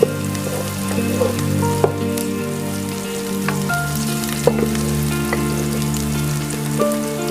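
Food sizzling as it fries in a pan, with a few sharp clicks of a utensil, under background music with held notes.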